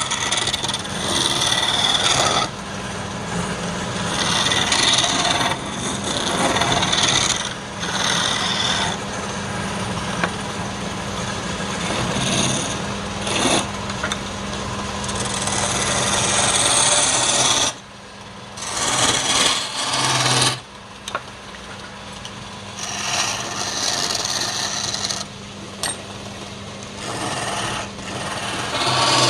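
Wood lathe running with a steady motor hum, while a tool scrapes against the spinning wood in repeated passes of a few seconds each, easing off briefly a couple of times.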